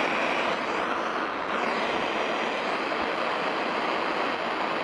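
Loud, steady FM radio static hissing from a Philips BT64W portable speaker in FM mode while it is not tuned to a station. The hiss starts and stops abruptly.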